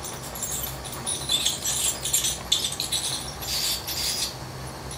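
Small scissors snipping and scratching through a dog's hair close to the skin, clipping the fur around a facial abscess from an infected upper fourth premolar (carnassial) tooth. The snips come in short, irregular scratchy bursts.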